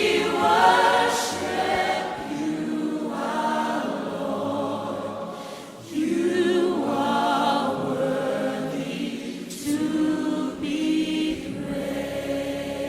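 A group of voices singing a slow worship song together in long, held phrases, with vibrato audible on the sustained notes.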